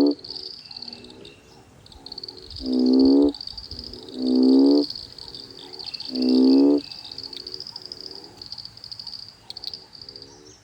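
Frog breeding chorus after summer rain: loud, pitched croaks about half a second long, four in all and a second or two apart, with softer croaks between them. A continuous high trill runs underneath.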